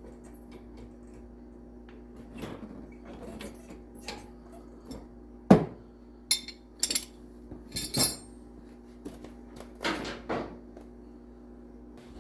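Metal hand tools and parts clinking and knocking while being handled, in irregular scattered strikes. The loudest knock comes about five and a half seconds in, followed by a run of sharper clinks over the next few seconds.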